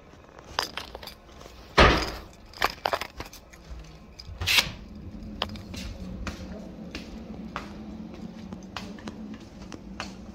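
A door thuds shut about two seconds in, amid clattering knocks from handling the phone. Footsteps follow on a hard floor, about one and a half steps a second, over a faint steady low hum.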